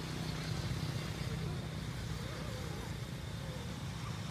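A steady low hum runs throughout. Faint, wavering, squeaky calls rise and fall over it in the middle.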